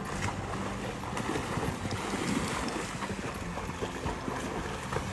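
Dogs swimming and splashing through a dam, water churning around them.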